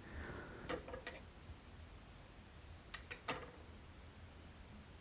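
Faint, scattered light clicks and handling noises from working with fly-tying materials and tools at the vise. A few come together about a second in, and two more come around three seconds.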